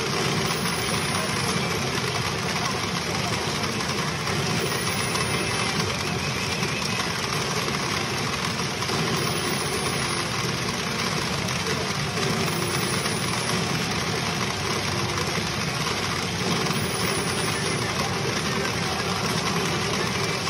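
Steady, dense din of a pachinko parlor: the mixed noise of many pachinko machines running.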